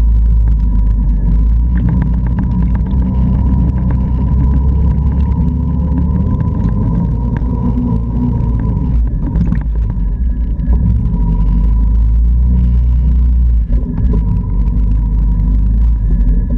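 Can-Am Outlander 650 ATV's V-twin engine running as the quad is ridden over rough, grassy ground, with a heavy low rumble and a steady whine throughout.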